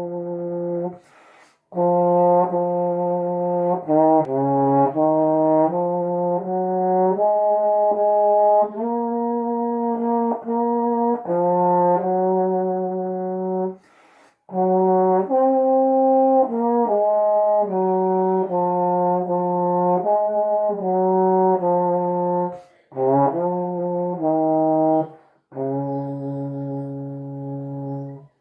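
Solo trombone playing a hymn melody in slow, sustained notes, with short breaks for breath between phrases and the last note held and then cut off.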